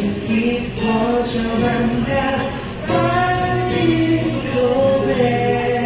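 Voices singing a melody together, holding long notes, with a longer sustained passage from about halfway through.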